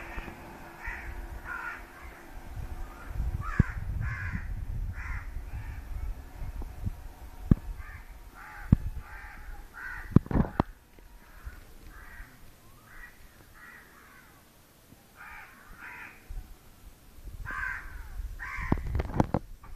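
Crows cawing, many short calls one after another, over a low rumble, with a few sharp knocks.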